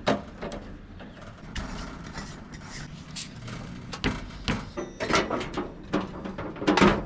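Clicks, scrapes and knocks of a green propane cylinder being threaded onto the regulator of a Coleman two-burner propane stove and set down on a glass tabletop, with the loudest clatters about four to five seconds in and near the end.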